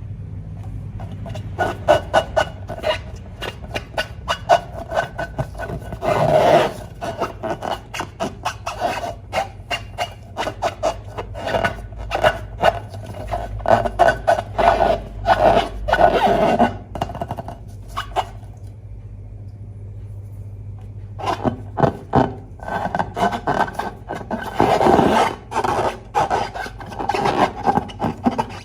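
Rubber balloon squeaking and crackling as it is rubbed and squeezed by hand, in dense runs with a short pause about two-thirds of the way through.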